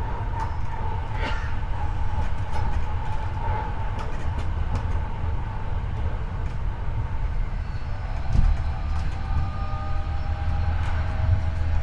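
Hankyu 8300 series electric train running, heard from the car floor above a motor bogie that the recordist notes for its unusual noise: a steady low rumble of wheels on rail with scattered clicks, and a high steady tone that fades away. About eight seconds in, new whining tones from the Toyo IGBT-VVVF drive and induction motors come in and rise slightly.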